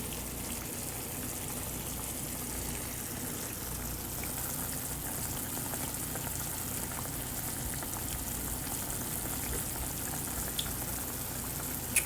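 Pan of steak and gravy simmering on the stove, a steady sizzling bubble, with a small click near the end.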